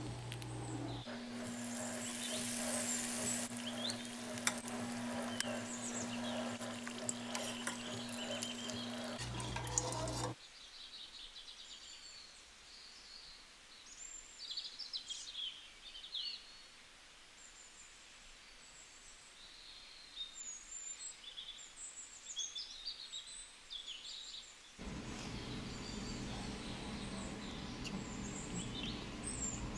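Hot oil sizzling and crackling in a frying pan over a steady electric hum. About ten seconds in it cuts off abruptly, leaving quiet bird chirps, and a low hum comes back near the end.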